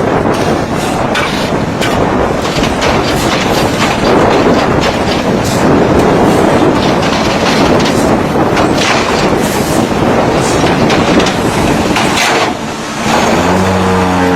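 Concrete block press machine running: loud, dense mechanical clatter with irregular knocking and rattling. Near the end the clatter drops away and a steady motor hum takes over.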